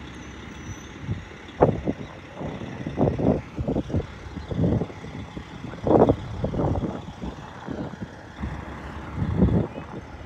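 A parked motor coach's diesel engine idling, with irregular muffled rushes of noise coming and going over it.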